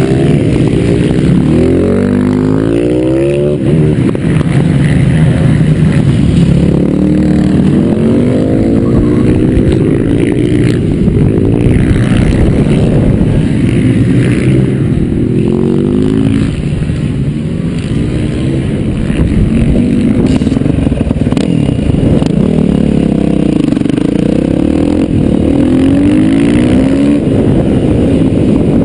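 Yamaha YZ450F single-cylinder four-stroke engine under hard acceleration, heard on board the bike. The pitch climbs and drops again and again as it revs out and shifts through the gears, easing off briefly into the corners.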